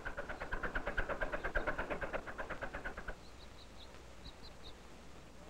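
Allis-Chalmers farm tractor engine running, a rapid even putt-putt of about nine pulses a second that cuts off about three seconds in. Faint bird chirps follow.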